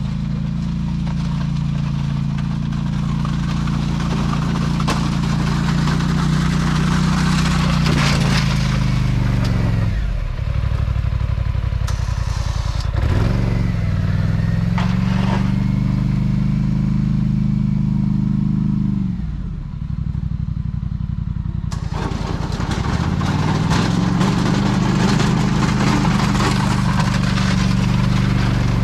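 Polaris Sportsman 850 ATV's parallel-twin engine running close by. Its pitch climbs and holds under throttle, drops back about ten seconds in and again near twenty seconds, and rises again each time.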